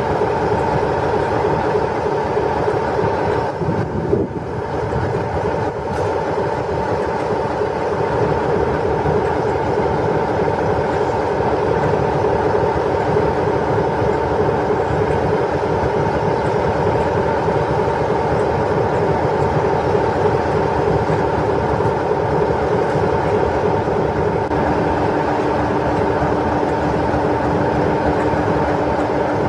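British Rail Class 47 diesel locomotive idling, its Sulzer twelve-cylinder engine giving a steady, unchanging note. A further steady lower tone joins about 25 seconds in.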